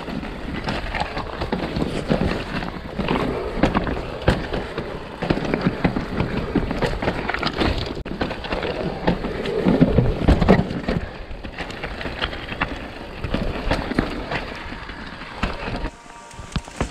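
Mountain bike descending a rocky, technical trail: tyres clattering over stones and a steady rattle of chain and frame, full of dense irregular knocks over a low rumble. It eases off near the end.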